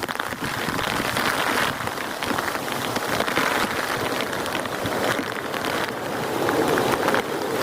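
Heavy rain falling steadily: a continuous hiss with a dense patter of close individual drops hitting a surface.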